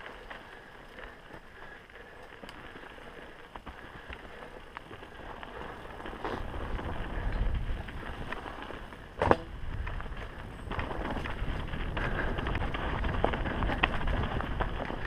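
Mountain bike rolling down a dirt singletrack: tyre noise on the dirt with a steady clatter of small rattles from the bike over rough ground. Wind rumble on the microphone grows louder about six seconds in, and a single sharp knock comes about nine seconds in.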